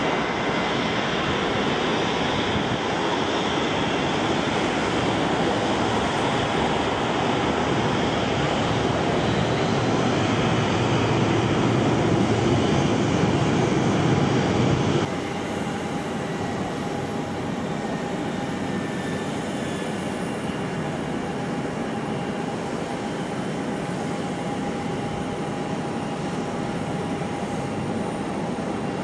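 Fokker 70's twin tail-mounted Rolls-Royce Tay turbofans running at taxi power: a steady jet rush with an engine whine. The level drops suddenly about halfway through, and after that a thin steady whine stands out more clearly.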